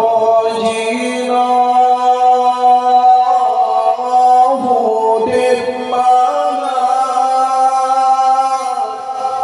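A man singing an Acehnese qasidah solo through a microphone, drawing out long held notes that slide to a new pitch every second or two.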